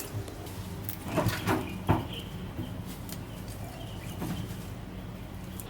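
A few short knocks and clatters of kitchen items being handled, loading a blender jar with parsley leaves and olive oil, about one to two seconds in, over a steady low hum.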